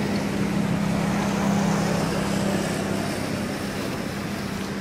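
A steady motor-like drone with a constant low hum over a hiss of noise, unchanging throughout.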